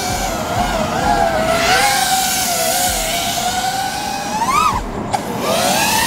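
A 5-inch FPV quadcopter's four T-Motor Velox V3 2306 2550KV brushless motors and props whining in flight, the pitch wavering with the throttle. It swoops up sharply about four and a half seconds in, cuts out for a moment and climbs again near the end.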